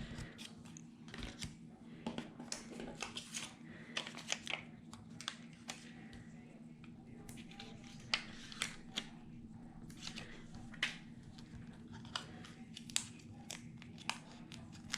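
Paper pieces being handled on a scrapbook page: irregular rustling and crinkling with many short sharp clicks and taps, over a faint steady hum.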